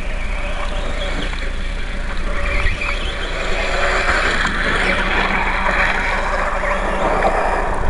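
Radio-controlled dirt bike running over loose dirt: a noisy rush of motor and tyres that grows louder about halfway through as it spins through the dirt and throws up dust.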